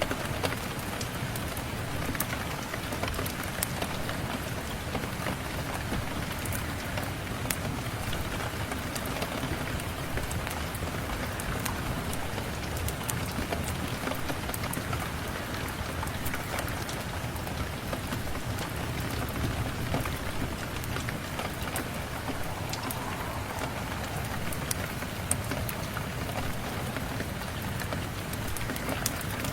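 Steady rain falling, with scattered small sharp clicks over the even hiss.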